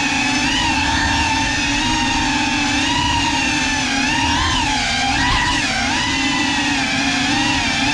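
GEPRC Cinelog35 cinewhoop FPV drone's brushless motors and ducted propellers whining in flight, heard from the onboard GoPro. The whine holds steady but its pitch wavers up and down as the throttle changes, with a clear dip and swing about five seconds in.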